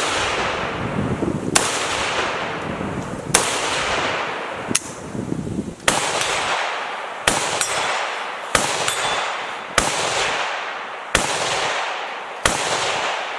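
A series of single gunshots, about nine, fired steadily roughly every second and a half, each crack followed by a long fading echo.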